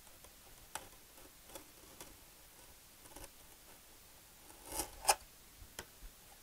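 Craft knife shaving the trailing edge of a foam-board part to a thin wedge: a few faint, short scraping cuts and clicks, spaced out, the loudest pair about five seconds in.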